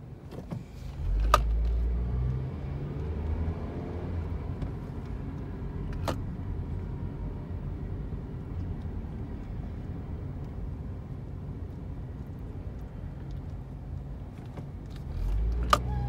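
Car cabin noise while driving: steady engine and road noise with a faint high-pitched whine, a low rumble about a second in and again near the end, and three sharp clicks.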